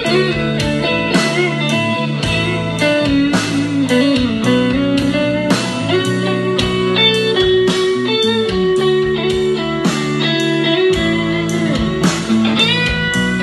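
Guitar-led music with a steady beat, played through a pair of homemade three-way bass-reflex wooden speakers.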